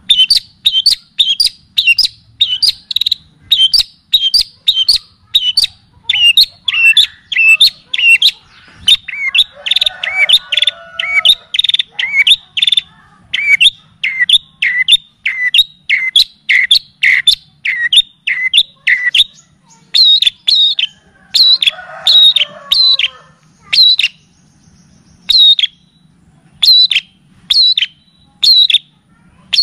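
Songbird song: a rapid series of sharp, clear chirps, about two to three a second, each a quick hooked note, with a softer, lower chattering song beneath them twice. There is a short break about three-quarters of the way through before the chirping resumes.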